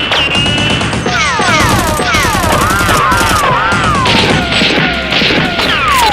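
Dubbed rapid automatic gunfire sound effects over music. Many quick falling whistling tones repeat throughout, and a warbling tone sounds near the middle.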